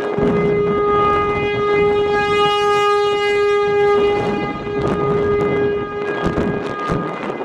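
American Signal T-135 rotating outdoor warning siren sounding one steady tone, growing louder and brighter as the horn swings toward the listener in the middle and fading as it turns away. Wind buffets the microphone throughout.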